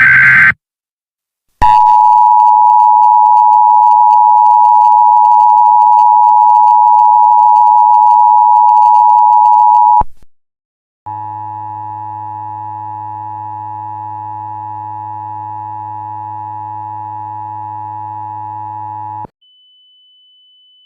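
Emergency Alert System broadcast tones. A harsh digital data burst of the SAME header ends about half a second in, followed by the loud, steady two-tone EAS attention signal for about eight seconds, which cuts off suddenly. After a second's pause comes a quieter, buzzier steady tone for about eight seconds, then a faint high tone near the end.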